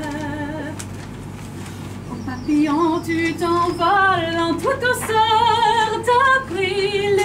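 A woman singing live with wide vibrato. A held note fades just after the start, and after a short pause she resumes, about two and a half seconds in, with rising and falling phrases and long held notes.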